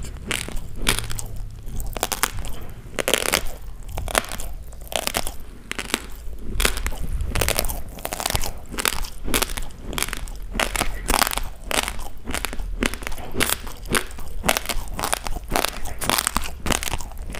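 Close-miked chewing of a mouthful of raw basmati rice: dense, rapid crunching of hard dry grains being ground between the teeth, several crunches a second.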